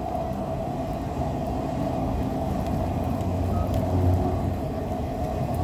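Empty autorack freight cars rolling slowly past, a steady rumble of steel wheels on the rails that swells briefly about four seconds in.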